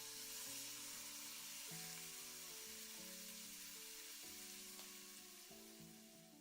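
Food sizzling in a hot pan, a steady hiss that cuts off abruptly near the end, over soft background music.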